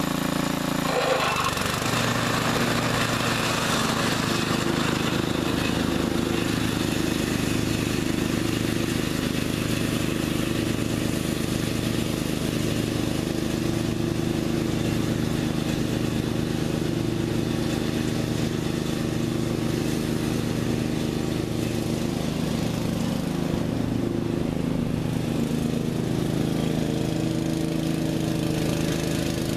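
Bolens by MTD riding lawn tractor's 13.5 hp Briggs & Stratton engine running steadily while the tractor is driven. The engine note changes abruptly about a second in.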